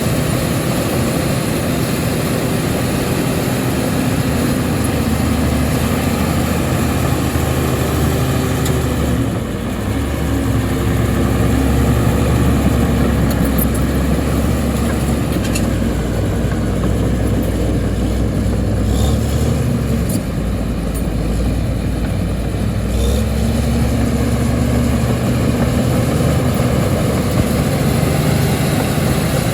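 Diesel engine of heavy earth-moving equipment running steadily, its pitch shifting about ten seconds in and again a little over twenty seconds in.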